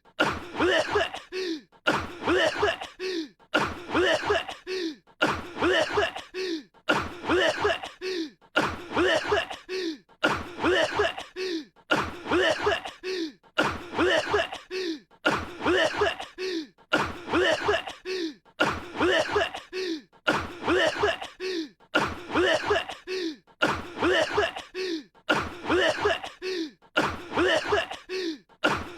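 A young man coughing from a cold: short voiced coughs repeated over and over at an even pace, like a loop.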